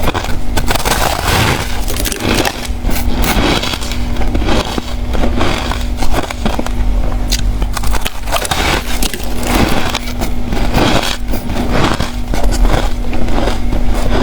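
Close-up crunching of ice being bitten and chewed, a dense run of irregular sharp crunches, over a faint steady hum.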